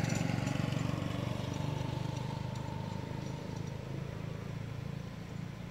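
A vehicle engine running steadily as a low hum, slowly fading away.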